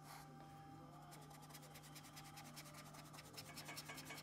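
Paintbrush scrubbing stiff oil paint onto a painting's surface: faint, quick scratchy strokes that grow louder near the end.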